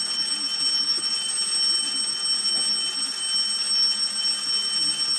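Alarm clock ringing on and on as a steady, unbroken high-pitched tone, with nobody switching it off.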